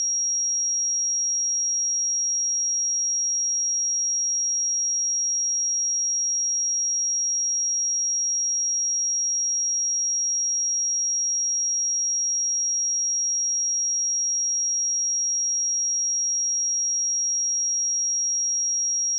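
A single steady 5641 Hz sine-wave test tone, a pure high-pitched whistle-like tone held at one pitch and one level.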